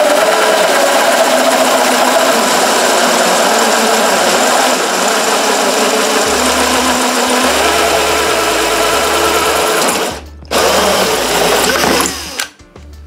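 Power drill with a 54 mm hole saw cutting through the wall of a 110 mm PVC soil pipe, running steadily under load. It stops briefly about ten seconds in, cuts again for about two seconds, then stops near the end.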